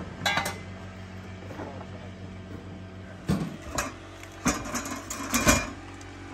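A handful of sharp knocks and clatters, one near the start and a cluster about three to five and a half seconds in, over a steady low hum.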